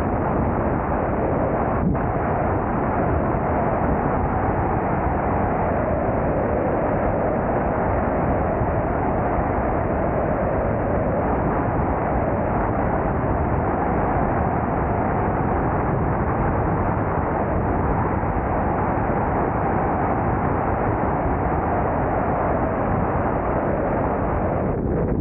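Steady rush of wind and engine noise from a car driving along at speed, holding even throughout.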